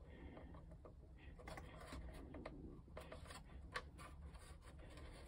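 Near silence with faint clicks and rubbing of thin 3 mm plywood model-ship parts being worked into a tight fit, and one sharper click a little past halfway.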